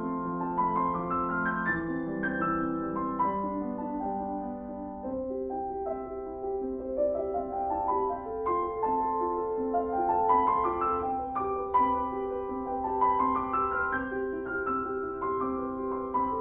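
Background piano music playing gentle, repeated rising runs of notes.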